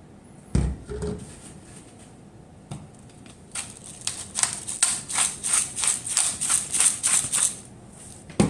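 Oiled eggplant slices being tossed and shaken in a container: a couple of knocks about half a second in, then a rhythmic rattling shake at about three strokes a second from about three and a half seconds in until near the end.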